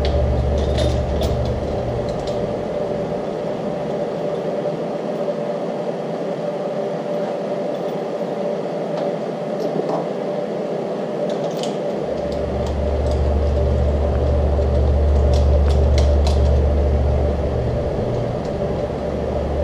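Steady low machine hum in a workshop, which fades out about four seconds in and comes back about twelve seconds in. Over it come a few light metallic clicks as the cam gear, timing chain and new camshaft bolt are handled on the front of the engine, the bolt only run in finger tight.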